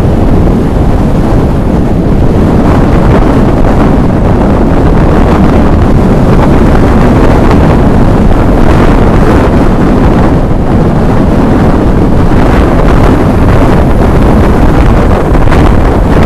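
Loud, steady wind rush buffeting the microphone of a camera on a moving motor scooter, mixed with road and vehicle noise.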